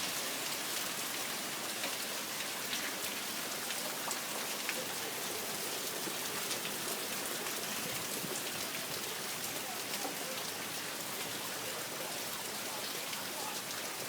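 Heavy hurricane rain pouring steadily, a dense hiss of drops hitting surfaces with many small, sharp drop hits through it.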